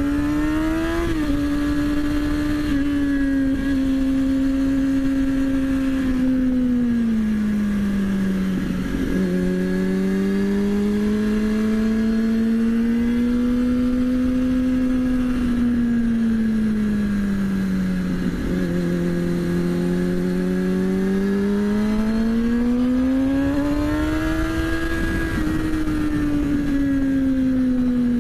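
Kawasaki ZX-6R inline-four engine under way, its note rising and falling slowly with the throttle, with short breaks in the note about nine and eighteen seconds in. Wind rushes over the bike.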